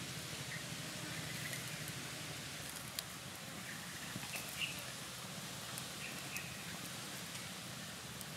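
Small wood fire crackling with a few sharp pops over a steady outdoor hiss, with a few faint bird chirps.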